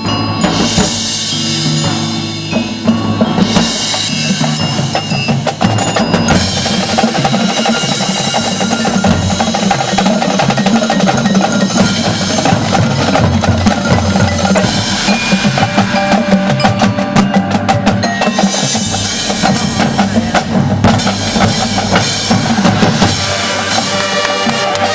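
Marching band playing, with a drumline's bass and snare drums and rolls striking steadily under sustained pitched notes.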